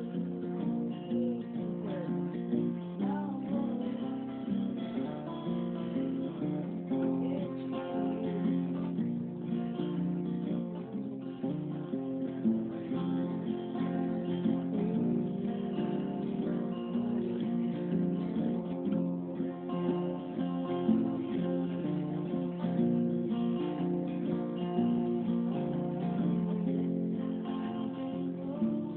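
Acoustic guitar music, strummed.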